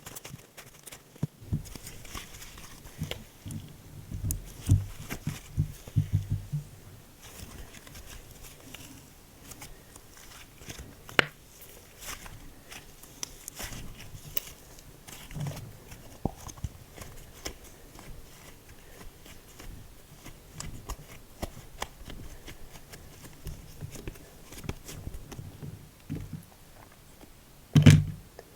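Hands kneading, stretching and pressing slime, making irregular sticky clicks, pops and squishes. There is a busier patch of squishing a few seconds in and one loud squelch near the end.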